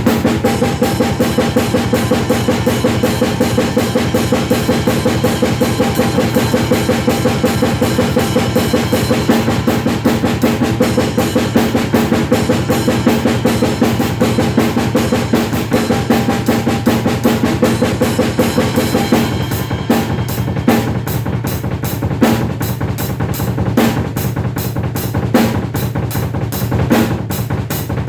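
Acoustic drum kit played solo: fast, even strokes on the bass drum and snare. About two-thirds of the way through it changes to a sparser pattern with separate accented hits.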